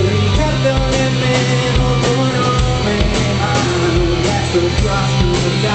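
A rock power trio (bass, drums and electric guitar) playing live, with an untrained male lead vocal that sounds nasal, as if sung with a clothespin on the nose. It is a lo-fi recording with the top end cut off.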